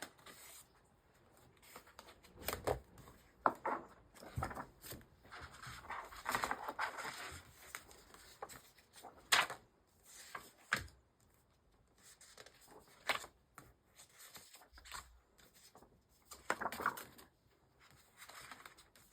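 Paper sheets and planner inserts being handled and slid into place, with rustling and several sharp clicks spread through.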